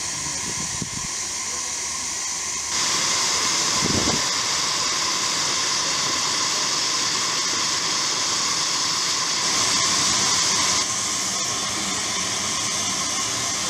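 Steam hissing steadily from the live steam 4-8-4 locomotive, stepping up about three seconds in and louder still for about a second near ten seconds before easing back.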